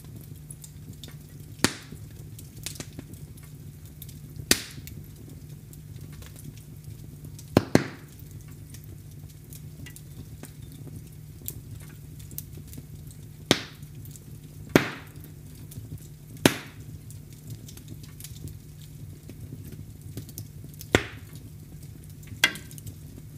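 Fire in a fireplace crackling, with sharp pops every few seconds at irregular intervals over a steady low rumble.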